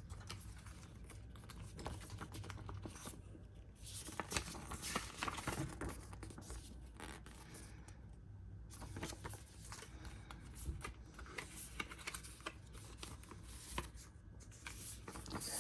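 Paper pamphlets and their card sleeve being handled and opened: faint, irregular rustling, scraping and small taps of paper.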